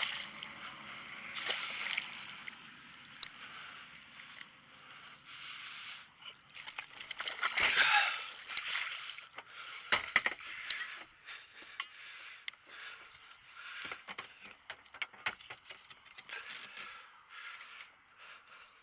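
Water splashing and sloshing around a small fishing boat, with scattered knocks and clicks; loudest in a swell about eight seconds in, followed by a couple of sharp knocks.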